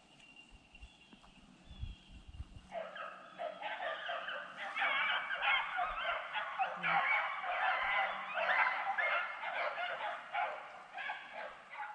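A pack of beagles baying on a rabbit's track, many voices overlapping. The pack is faint at first, then swells loud about three seconds in as it comes closer.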